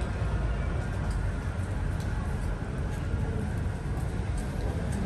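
Busy outdoor street ambience: a steady low rumble with a faint murmur of voices.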